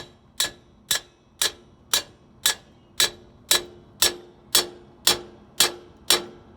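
Hammer blows on a wheel-seal driver tool, driving a new wheel seal onto a truck hub: sharp, evenly spaced strikes about two a second, each with a short metallic ring.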